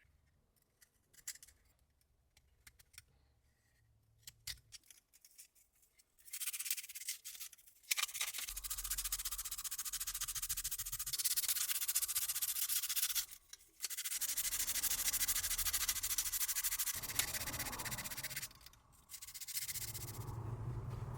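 Hand sanding of a polymer pistol grip: long stretches of gritty rubbing with a short pause about two-thirds of the way through. Light clicks and taps come in the first few seconds, before the sanding starts.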